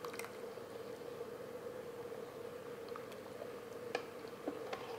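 Wire whisk stirring thin gravy in a pot as cornstarch slurry is worked in to thicken it: a soft wet swishing with a couple of light clicks near the end. A steady faint hum runs underneath.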